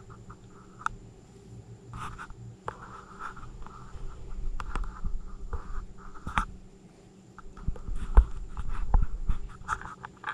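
Raccoon eating at close range from plates of food: irregular scratchy chewing and scraping with scattered sharp clicks, and a run of low thumps about eight to nine seconds in.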